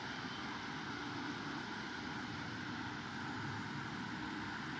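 Steady background drone of distant engine noise, such as traffic or an aircraft, with a faint high trilling that comes and goes.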